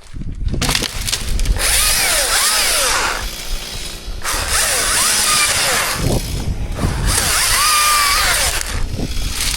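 Chainsaw running and cutting wood in three long bursts, dropping back briefly between them.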